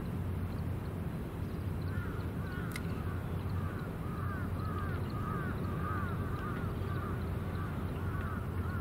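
Birds calling in quick, repeated short chirps from about two seconds in, over a steady low outdoor rumble.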